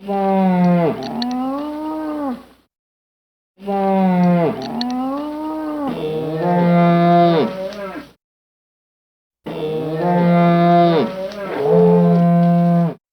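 Moose calling: three long, pitched calls, each bending down and up in pitch, with dead silence between them.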